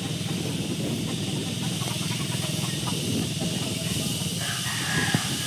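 Wind rushing over the microphone of a moving motorbike, with the steady low drone of its engine underneath; one light knock near the end.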